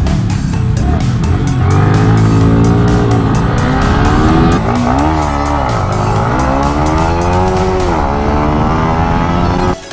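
Yamaha 155cc single-cylinder motorcycle engine revving, its pitch climbing and dropping several times as the throttle is opened and closed. The sound cuts off abruptly near the end.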